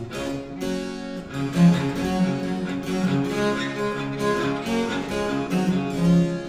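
Baroque cello playing a bowed toccata line over harpsichord continuo, with the harpsichord's plucked notes under the sustained cello tones.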